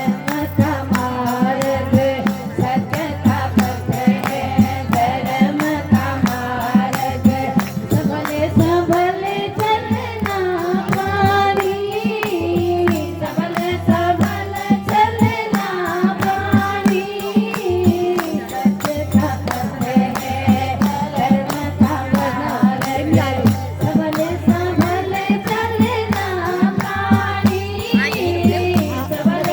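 A woman singing a Hindi devotional bhajan, the melody bending and held in long phrases, over a steady rhythmic percussion accompaniment.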